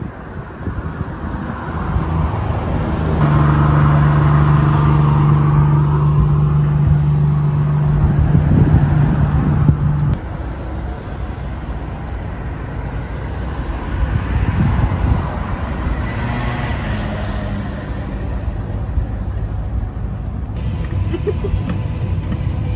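City street traffic: a motor vehicle's engine running with a strong steady hum that cuts off abruptly about ten seconds in, then a lower wash of road noise.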